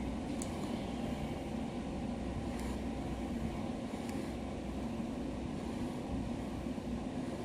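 Osaka Metro Tanimachi Line subway train running, a steady rumble with a low hum and a few faint ticks.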